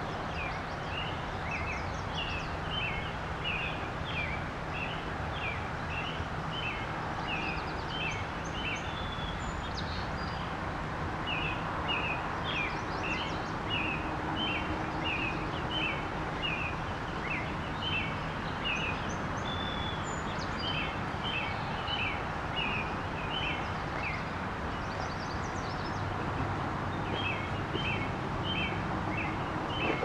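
St. Croix River water rushing steadily. Over it a bird calls in long runs of short chirps, about two a second, pausing briefly twice.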